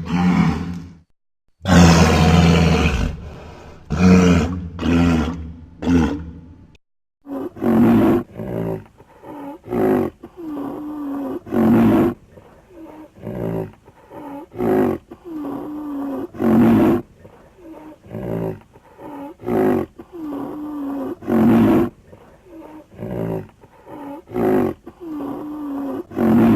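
Ankylosaurus creature sound effects: a few long, deep roars with short silent breaks between them, then a string of shorter calls about once a second, each with a pitch that bends up and down.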